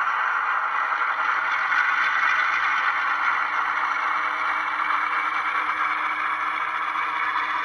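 HO scale GE ES44AC locomotive model running with its onboard sound playing a diesel engine through the model's small speaker, steady and concentrated in the mid and upper range, over a scraping rattle from the model's mechanism on the track.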